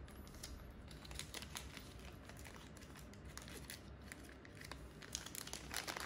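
Small clear plastic bags crinkling as they are handled, a run of faint crackles that grows busier near the end.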